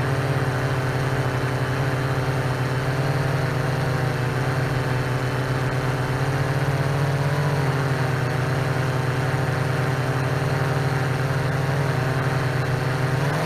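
Multirotor fishing drone's motors and propellers humming steadily in flight, the pitch wavering slightly now and then.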